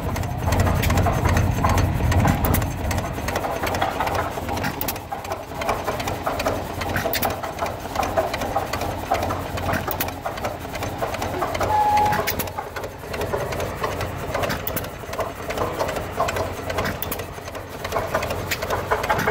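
Waterloo Boy hit-and-miss stationary gas engine running, making a rapid, irregular clatter of sharp clicks and knocks over a low rumble.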